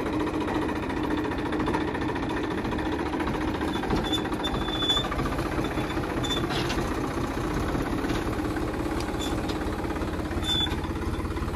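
Tractor diesel engine running steadily with a fast, even chugging, driving a tractor-mounted mulch-film laying machine.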